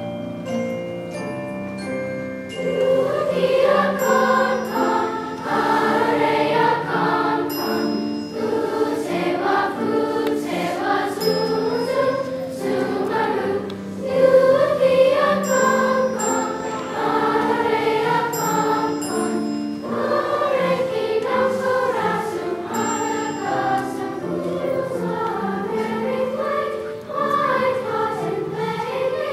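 A large children's choir singing with upright piano accompaniment. The piano plays alone for the first couple of seconds, and then the choir comes in.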